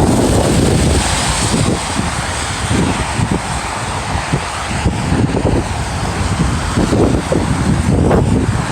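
Wind buffeting a phone microphone during a snowstorm: a loud, steady low rumble with a gusty hiss over it.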